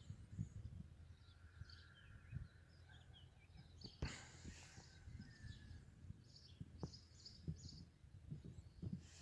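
Faint outdoor ambience: scattered, short, high chirps of small birds, with irregular low thumps on the microphone and one sharp click about four seconds in.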